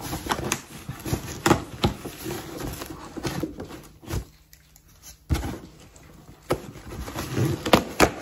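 Cardboard shipping box being opened with scissors: irregular clicks, scrapes and rustling of cardboard and packing tape, quietening briefly about four seconds in.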